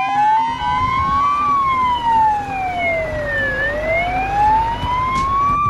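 A siren wailing: its pitch rises for about a second and a half, falls slowly for about two seconds, then rises again.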